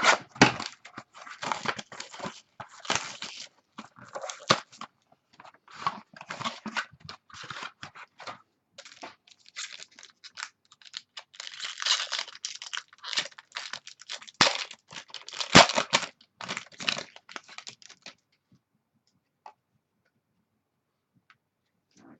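A 2013 Tier One baseball card box and its wrapping being torn open by hand, with irregular crinkling and tearing of plastic and cardboard. The tearing stops about three-quarters of the way through, followed by near quiet.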